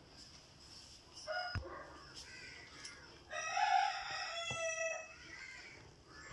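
A rooster crowing: a few shorter calls, then one long crow starting a little over three seconds in. A couple of light knocks sound along with it.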